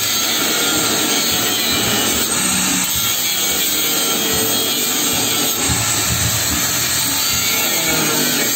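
Handheld electric angle grinder with its abrasive disc pressed into a steel rod, giving a steady, unbroken grinding.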